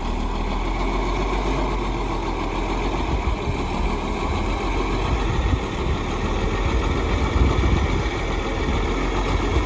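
Farm tractor's engine running steadily up close while its front loader sets a round hay bale onto a flatbed trailer.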